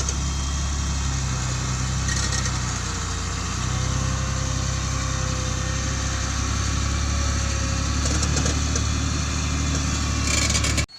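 An engine running steadily at a low, even pitch, cutting off abruptly just before the end.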